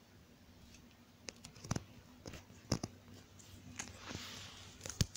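Handling noise from a phone held in the hand: a few scattered clicks and knocks, the loudest near the end, and a short rubbing hiss about four seconds in.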